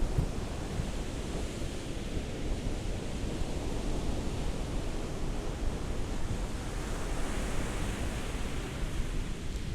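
Ocean waves washing on a beach: a steady hiss of surf with a low rumble, swelling a little about three-quarters of the way through.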